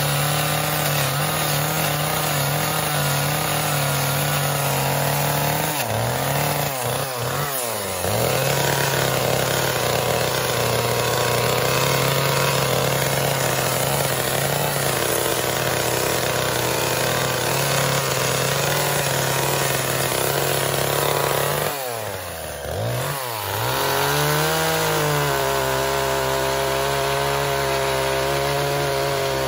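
Gas chainsaw running at high revs while cutting into a log. Its pitch drops and climbs back twice, about seven seconds in and again around twenty-two seconds, as the throttle is eased off and squeezed again.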